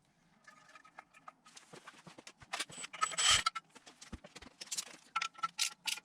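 Small metallic clinks and taps of a steel bolt and tools being handled while the bolt is fitted into an engine-mount bolt hole, with one louder ringing clink about three seconds in.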